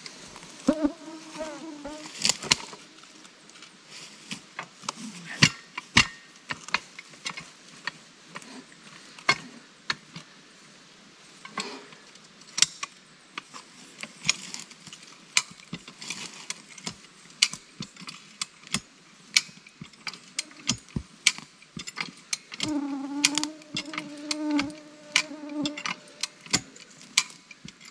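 Irregular metal clicks and knocks from working a chain and jack on an old rail, with a steady buzz that comes in twice for a few seconds, about a second in and again near the end.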